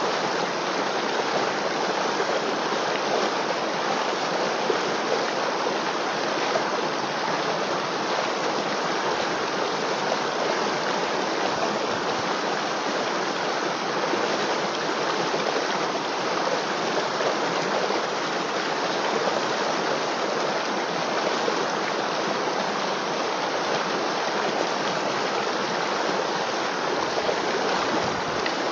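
River water flowing and babbling over rocks in a steady, even rush.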